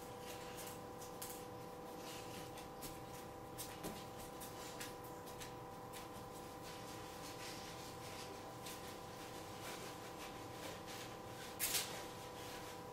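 A dog rummaging through a kitchen wastebasket: scattered rustles and light scrapes of paper and plastic trash, with one louder rustle near the end. A steady electrical hum runs underneath.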